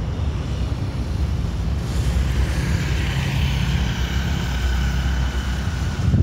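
Airbus A320 jet airliner on approach, heard as a steady low rumble with wind buffeting the microphone. From about two seconds in, a rushing hiss and a faint high engine whine rise over the rumble.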